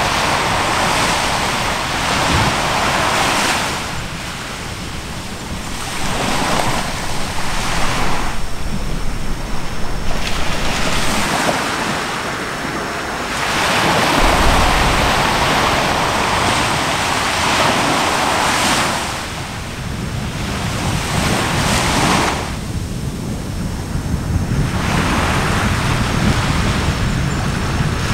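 Surf washing ashore and wind buffeting the microphone: a rushing noise that swells and ebbs every few seconds. A brief low rumble comes about halfway through.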